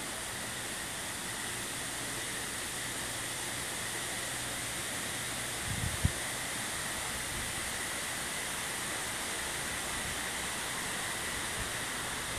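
Steady outdoor background hiss with a faint low hum under it, broken by a couple of dull thumps about six seconds in.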